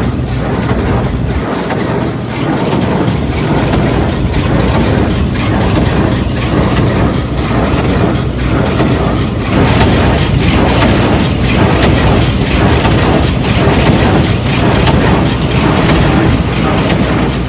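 Hay baler running behind a tractor, its engine drone overlaid by a regular knock about one and a half times a second, getting louder about ten seconds in.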